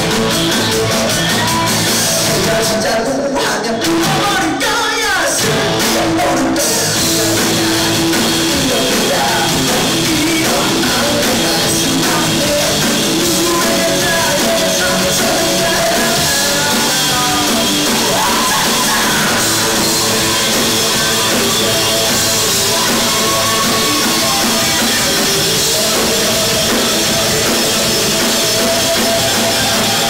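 Live rock band playing loud, with drum kit, electric guitar, bass and singing.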